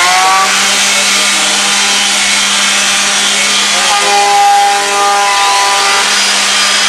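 Electric drill spinning a wire brush against rusty steel engine parts, a loud, steady grinding scrape over the drill motor's whine, which rises in pitch as it spins up at the start. It is scouring rust off the parts.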